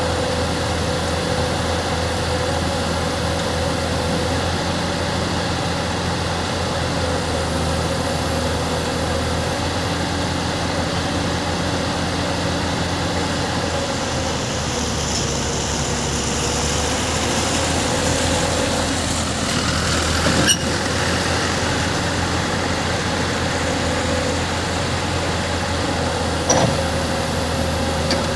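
Tata excavator's diesel engine running steadily under a steady, slightly wavering whine, with two short sharp knocks, one about two-thirds of the way through and one near the end.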